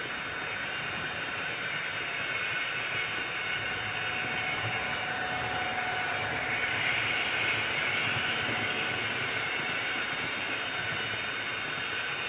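Model railway train running along the track: a steady electric motor whine with wheel and rail noise, growing a little louder about halfway through.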